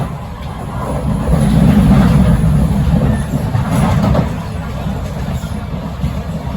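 Kawasaki–CRRC Sifang C151A metro train running between stations, heard from inside the carriage: a steady low rumble of wheels on rail and running gear, growing louder for a couple of seconds from about a second in, then easing back.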